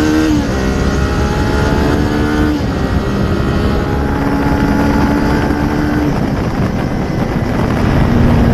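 Kawasaki Ninja 400 parallel-twin engine running under way. The pitch drops just after the start as a gear is changed, then climbs slowly and holds steady, with constant wind rumble on the helmet microphone.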